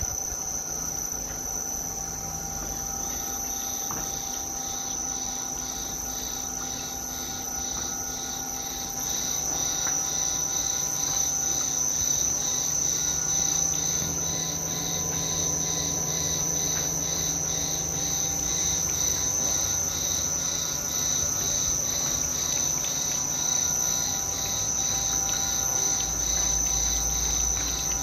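Insects chirping in a steady rhythm, about two chirps a second, over a high steady whine, with the low hum of a screw oil press's electric gear motor running as it presses safflower seed.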